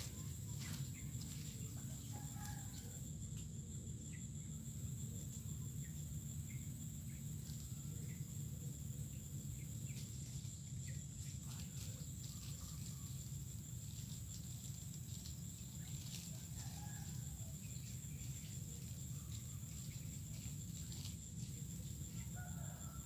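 Outdoor ambience: a steady high-pitched insect drone over a low steady rumble, with scattered short bird calls now and then.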